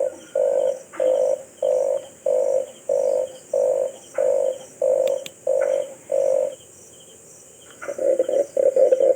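Red collared dove cooing: about ten low coos at an even pace of roughly one and a half a second, a pause of just over a second, then a faster run of coos near the end.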